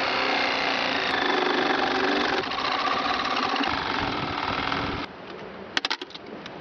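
A power drill runs steadily with a whining motor, driving at the screws of a junction box cover, and stops abruptly about five seconds in. A few sharp clicks follow as the cover is worked loose.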